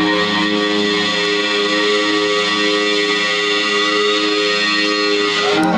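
Electric guitar holding a loud, sustained chord that drones steadily, then cuts off sharply near the end.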